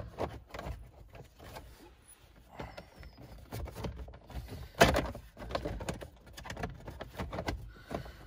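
Hard plastic clicks, knocks and rustling as the steering column shroud trim is worked back into place around the column, with one louder knock about five seconds in.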